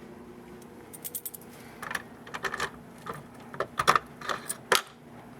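An irregular run of sharp clicks and taps from hands working the controls of a fire alarm control panel, starting about a second in and coming faster near the end, over a low steady hum.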